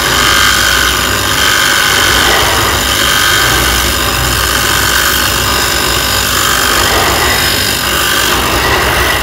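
Bench grinder running steadily, its abrasive wheel grinding away a white plastic part pressed against it by hand, with a loud, continuous whine and rasp.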